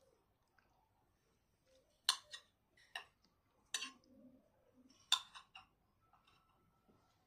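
Cutlery clinking against a plate while eating: four sharp clinks spread over a few seconds, with quiet between them.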